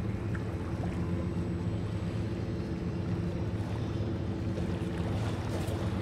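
Ferry engine running with a steady low drone.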